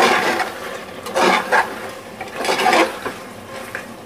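Metal spoon stirring thick meat masala in a pressure cooker, with three or four scraping strokes against the pot about a second apart over a low sizzle.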